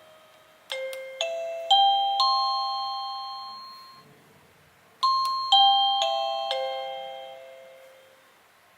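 INTENDVISION wireless doorbell receiver playing one of its ding-dong chimes: four bell-like electronic notes climbing in pitch about half a second apart, a fading ring, then the same four notes descending, each note ringing out and dying away.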